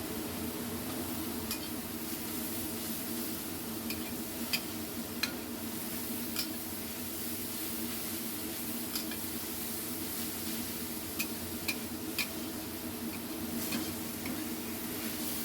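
Shredded papaya stir-frying in a pan with a steady sizzle, while a spatula stirs it and knocks against the pan in a dozen or so scattered sharp clicks.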